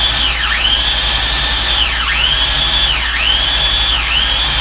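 Small countertop blender's motor whining at high speed as it blends guacamole. Its pitch dips briefly and climbs back about once a second.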